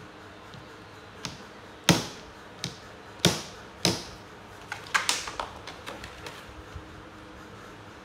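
A plastic laundry basket knocking against a hard surface as a baby monkey moves about in it: about five sharp knocks in the first four seconds, then a quicker run of lighter rattling taps.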